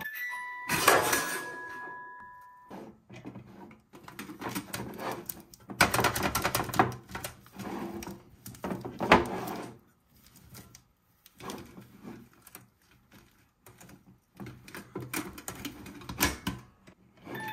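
Tin jack-in-the-box being handled. About a second in comes a loud snap with a brief ringing note as the lid springs open. Then come scattered clicks, taps and rubbing on the metal tin and lid, and a sharp click near the end as the lid is pressed shut.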